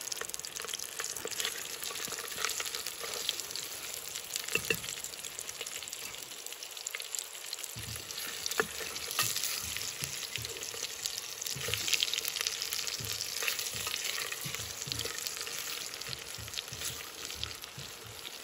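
Beef sizzling as it browns in oil in a small billy can over a wood fire, with a steady crackling hiss. A spoon stirs it now and then, giving short knocks from about eight seconds in.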